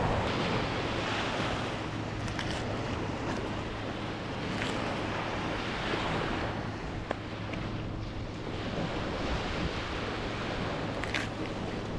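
Surf washing onto a sandy beach in a steady rush that swells and eases every few seconds, with wind on the microphone.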